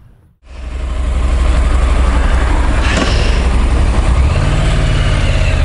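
Honda NC750X motorcycle's parallel-twin engine running steadily close to the microphone, starting suddenly about half a second in.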